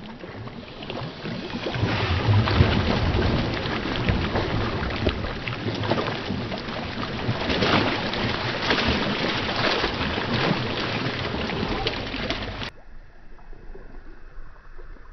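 People splashing and thrashing in a pond, churning water in dense, irregular splashes. The splashing cuts off suddenly about three-quarters through, leaving only faint, quiet outdoor background.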